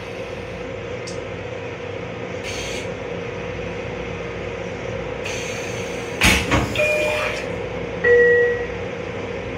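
Interior sound of a Metro-North M7 railcar: a steady hum from the car's equipment with a couple of short hisses, a clunk about six seconds in, then a two-note chime falling in pitch.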